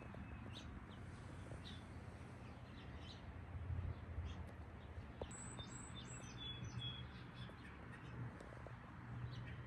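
Faint bird chirps, a quick run of short high notes about halfway through, over a low steady rumble.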